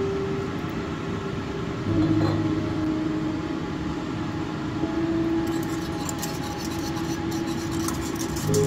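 Background music: slow held notes that change every few seconds over a low bass, with faint quick ticking entering about halfway through.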